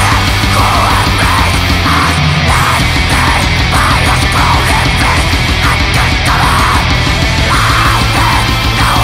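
Black metal music: a loud, dense, unbroken wall of distorted guitars and drums.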